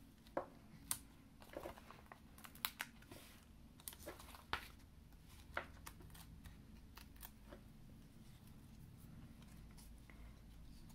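Faint, scattered small clicks and rustles of hands handling cardstock and peeling foam adhesive dimensionals from their sheet to stick on a paper sentiment strip. The clicks thin out over the second half.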